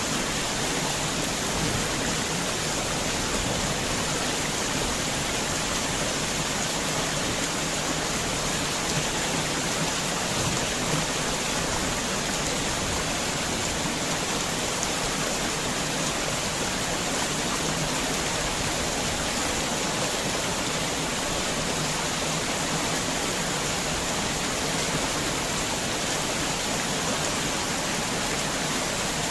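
Heavy rain falling steadily, an even, dense hiss of drops with no let-up.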